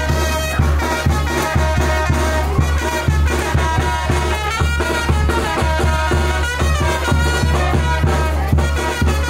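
Upbeat Latin dance music with brass and a heavy, steady bass beat.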